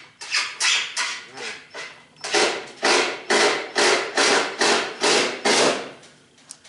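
A run of sharp knocks at the wheel hub of a Bauer shop vac being fitted onto its axle. Lighter knocks come in the first two seconds, then louder ones about two a second, stopping shortly before the end.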